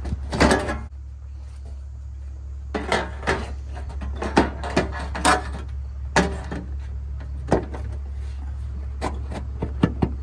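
Irregular knocks and clicks of a sheet-metal patch panel and clamps being handled and fitted against a truck's body, over a steady low hum.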